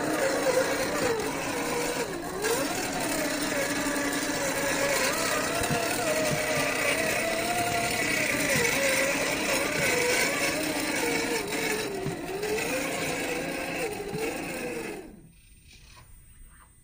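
Electric drivetrain of an MST CFX-W 1/10-scale RC rock crawler with a 550 brushed motor, whining as it crawls over rock. The pitch wanders up and down as the throttle changes. The sound cuts off suddenly about fifteen seconds in.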